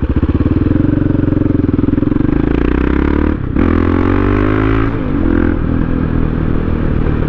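KTM LC4 640 supermoto's single-cylinder four-stroke engine accelerating from low revs, its pitch rising through the gears, with a brief drop at an upshift about halfway through and another about two-thirds in, then running steadily.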